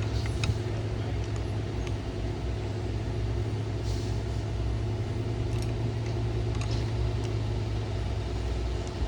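A steady low hum under faint clicks and scrapes of screws and plastic trim being worked loose around a car's window switch.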